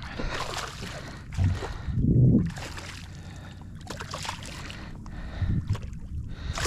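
Handling noises in a small fishing boat as a just-landed speckled trout is unhooked: irregular knocks, rustles and light water splashing, with a louder low thump about two seconds in.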